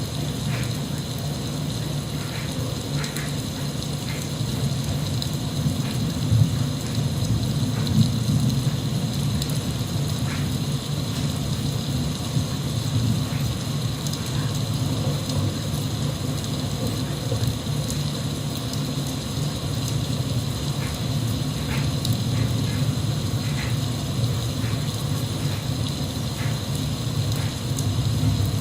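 Steady recorded rain with a low, continuous rumble underneath and scattered small drop ticks.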